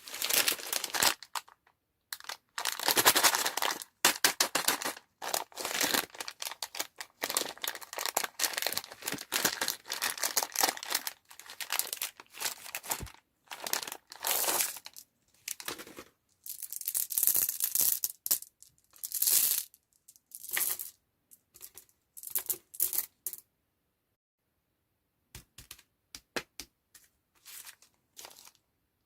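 Plastic candy wrappers being crinkled and torn open in quick, irregular bursts of crackling. The sound drops out completely for about two seconds near the end.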